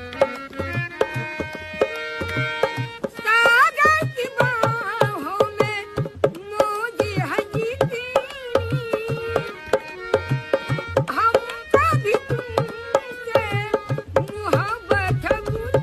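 Indian film-song music: a steady tabla beat under a melody. At first it is held, steady notes; about three seconds in, a wavering, bending melodic line with vibrato takes over.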